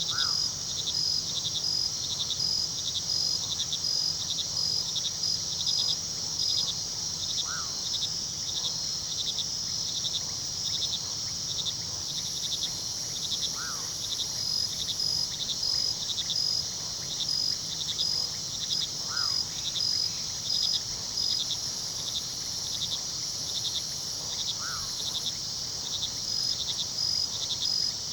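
Night chorus of crickets chirping steadily in high, evenly pulsed trills. A short call recurs about every five to six seconds beneath them.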